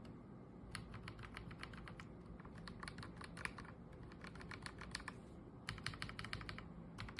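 Typing on a mechanical keyboard fitted with PBT dye-sublimated keycaps: keystrokes clacking in quick runs with brief pauses between them.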